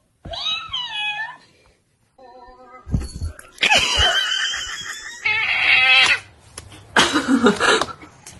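Cats meowing and yowling: a short meow that bends up and down near the start, then longer, louder, rougher yowls from about three seconds in.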